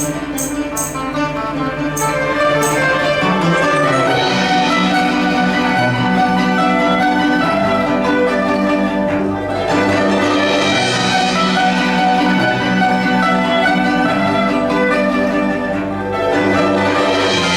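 Chinese chamber sextet of erhu, dizi, pipa, yangqin, zhongruan and cello playing, with sustained low notes beneath busy melodic lines and a few sharp struck notes near the start.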